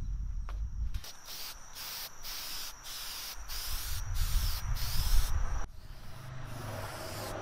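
Rust-Oleum aerosol spray-paint can spraying in a run of short hissing bursts, about two a second, for some four seconds. It stops abruptly, then gives one more brief burst at the very end; the can is spitting and working only intermittently. A low rumble runs underneath.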